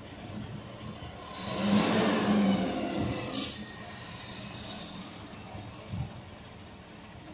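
Tractor-trailer dump truck's diesel engine revving up and settling back as the truck edges forward with its dump bed raised, then a short sharp air-brake hiss about three and a half seconds in.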